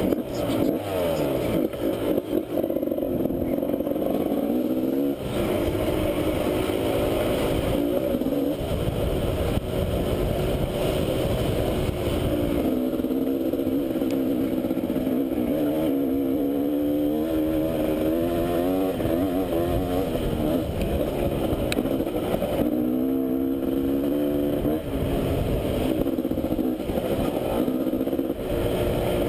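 Enduro motorcycle engine running hard on a dirt trail, its pitch rising and falling over and over as the throttle is worked and gears change, heard close up with a rough rumble underneath.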